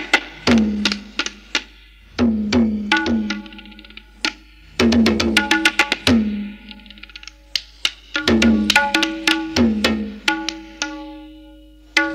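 Tabla drumming in short, quick phrases separated by brief pauses. Ringing strokes on the treble drum are mixed with deep bass-drum strokes that bend downward in pitch.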